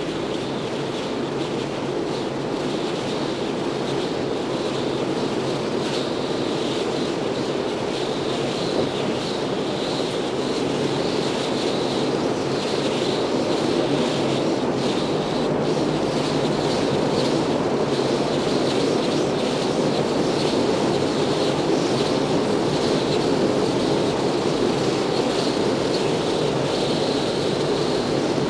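Steady rushing wind of the kind heard when moving fast through the air, as from a moving vehicle or a fall. It swells slightly louder over the stretch, with no breaks.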